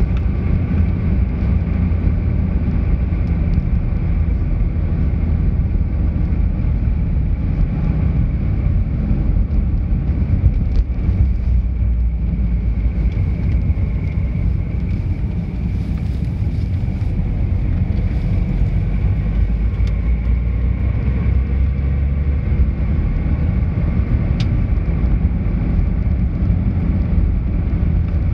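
Steady low rumble of a car's engine and tyres on the road, heard from inside the cabin while driving, with a faint steady whine above it.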